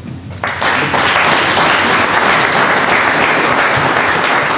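Audience applauding, starting suddenly about half a second in and holding steady.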